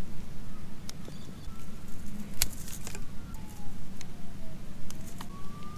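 Wire strippers cutting and pulling the insulation off low-voltage garden-light cable: a string of separate sharp clicks and snips over rustling handling noise.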